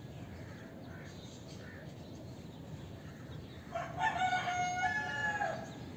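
A rooster crowing once: a single drawn-out call of nearly two seconds that starts about halfway through and is the loudest sound. Under it runs a faint, steady low rumble.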